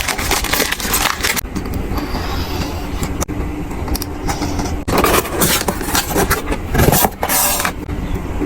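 Phone packaging handled during an unboxing: bursts of rustling and scraping, loudest about five seconds in and again near seven seconds, over a steady low rumble.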